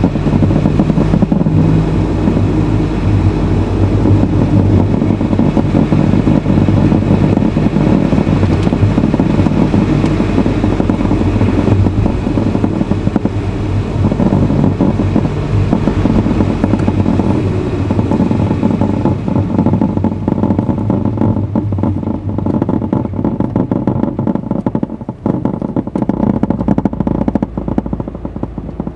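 Honda Fit (GE8) on the move, heard from inside the cabin: steady engine and road noise, growing quieter over the last several seconds.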